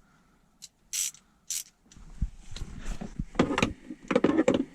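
Socket ratchet on 13 mm bolts being loosened: a few short scrapes in the first couple of seconds, then rapid runs of ratchet clicking that grow louder near the end.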